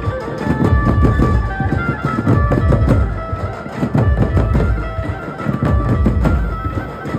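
Dhumal band playing loud, amplified traditional music: dense, heavy drum beats under a sustained lead melody line.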